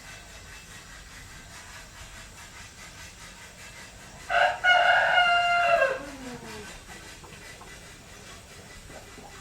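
Rooster crowing once, about four seconds in: a short first note, then a long held note that falls away at the end, over a steady background hiss.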